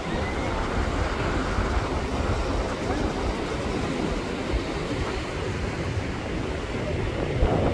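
Wind buffeting a phone microphone over the steady wash of breaking surf.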